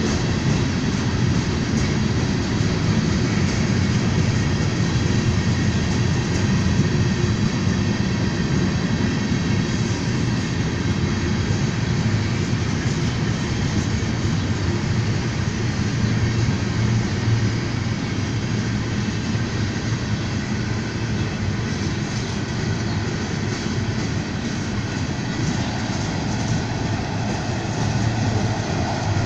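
Freight train rolling past: a steady, unbroken rumble of wheels on rails.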